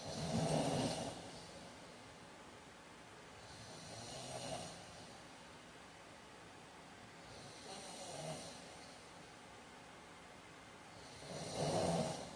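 A man snoring in his sleep: four snores about four seconds apart, the first and last the loudest.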